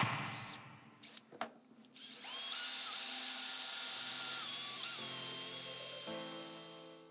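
Electric drill motor: a short burst right at the start, then about two seconds in it spins up with a steady high whine and runs at speed for about three seconds before winding down near the end. Background music plays underneath.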